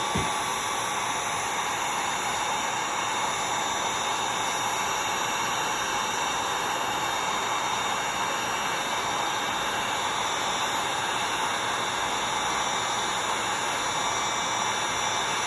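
Heat gun blowing hot air steadily, heating the front of an iPhone 11 to loosen it before the screen is lifted off.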